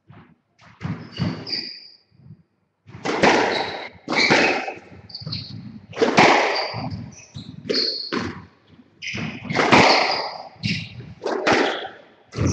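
Squash rally: the ball is struck by rackets and slaps off the court walls in a run of sharp, echoing thuds, beginning about a second in and coming thick and fast from about three seconds. Short high squeaks come in between.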